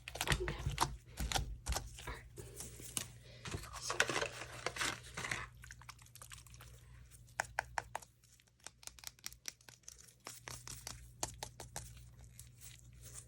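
Hands kneading and stretching homemade slime, making sticky crackling and clicking. The crackle is dense for the first five seconds or so, then thins to scattered sharp pops and clicks.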